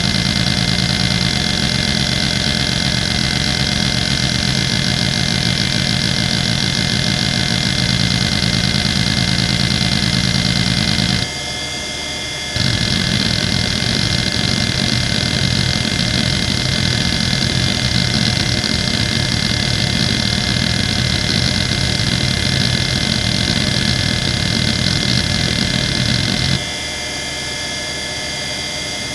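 Quantum ProDrive LPS 270AT 3.5-inch hard drive's head actuator seeking continuously through test seek patterns, a dense buzzing chatter over a steady high hum. The seeking stops briefly about eleven seconds in, and again near the end, leaving only the spinning drive's steady hum.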